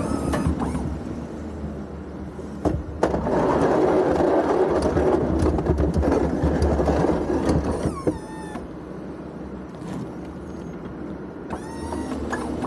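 Ford F-350 pickup running under load as its Boss V-plow pushes and scrapes snow across the pavement, loudest from about three to eight seconds in. The plow's electric-hydraulic pump whines in short rising sweeps near the start, about eight seconds in and near the end as the blade wings are moved.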